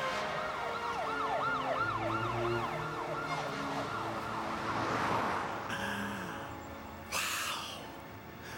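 A siren wailing in rapid rising-and-falling sweeps, about four a second, over background music, dying away after about three or four seconds; a short noisy burst about seven seconds in.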